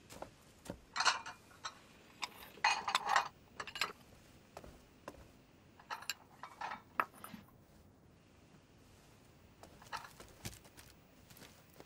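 Kitchen utensils and crockery being handled: scattered light clinks and knocks, with a few short scraping bursts about 1 s, 3 s, 6 to 7 s and 10 s in.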